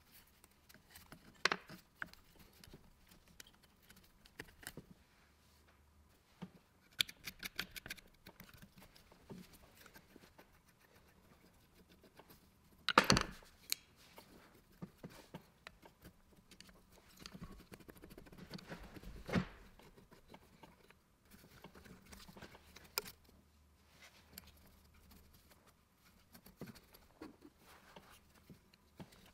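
Small clicks, taps and scrapes of hands and a screwdriver working on the old metal housing and wiring of an antique electric machine, with a quick run of ticks about seven seconds in, one sharp knock about thirteen seconds in, and a rustling stretch a few seconds later.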